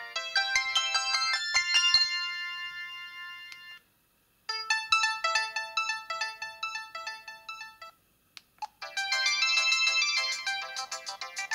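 Samsung SGH-L760 mobile phone playing its ringtones one after another, electronic melodies with several notes at once. One melody cuts off about four seconds in. After a short pause a second plays for about three and a half seconds and stops. A few faint clicks follow, then a third melody starts about nine seconds in.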